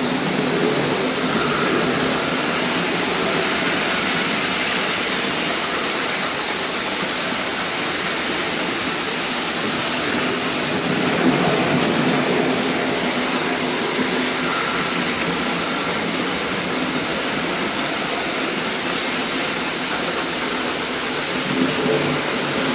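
Märklin H0 model trains running on the layout: a steady whir of their small electric motors and wheels rolling on metal track, with a faint steady hum.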